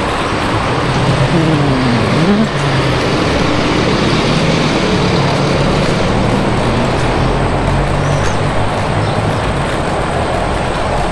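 Steady traffic and wind noise while riding an electric scooter along a city road, with a low engine hum from vehicles and a brief falling-then-rising tone about two seconds in.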